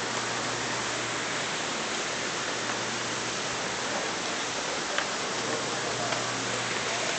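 Steady, even rushing noise with a low hum beneath it and a few faint ticks.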